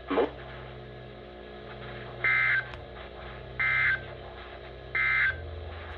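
NOAA Weather Radio SAME end-of-message data bursts: three short, harsh two-tone digital bursts about 1.4 s apart, signalling the end of an alert message. A low hum runs underneath.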